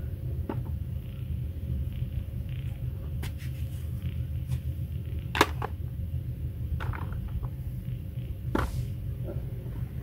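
A knife cutting through a real apple, giving a few short crisp cracks and taps, the sharpest about five seconds in and another near the end, over a steady low rumble.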